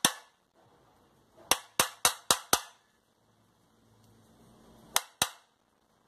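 Hammer blows on a block held against the metal housing of a vacuum cleaner motor, tapping the casing closed: one knock, then a quick run of five about a quarter second apart, then two more near the end. The knocks are sharp, with a short ring from the metal housing.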